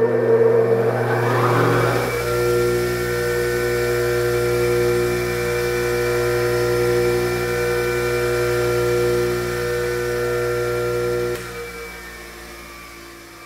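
Bench grinder motor (an 8-inch grinder with stone wheels) starting up, its whine rising over about two seconds, then running steadily with a mains-frequency hum and a set of steady tones. About eleven seconds in the power is cut, and the wheels coast down, fading away.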